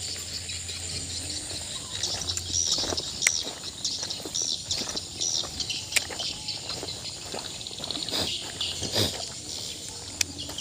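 Birds chirping over and over in short high calls, with a few sharp clicks in between.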